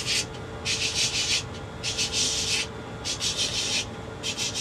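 Sanding sound effects: a series of scratchy swishes, each under a second long and about one every second, imitating sandpaper strokes.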